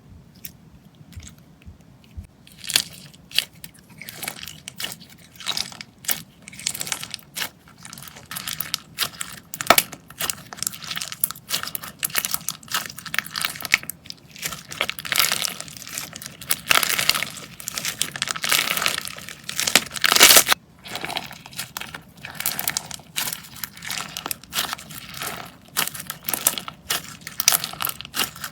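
Slime being squeezed and worked by hand, giving dense crackling and popping clicks that start about two seconds in.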